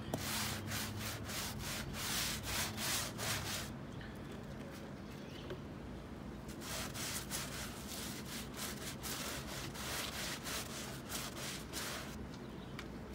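A stiff hand brush scrubbing cleaner into weathered wooden fence boards in quick back-and-forth strokes, about four a second. The scrubbing pauses for a couple of seconds midway, then starts again.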